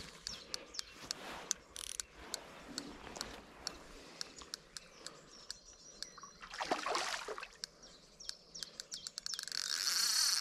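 Small birds chirping in short scattered calls. About two-thirds of the way through comes a brief splash as the hooked barbel thrashes near the bank. Near the end the fixed-spool reel starts a loud, fast ratcheting.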